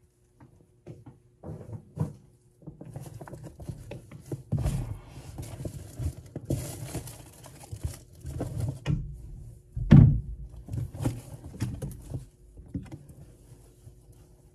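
Close rustling and handling noise of clothing and a fabric strap, with scattered small clicks and knocks and one loud dull thump about ten seconds in.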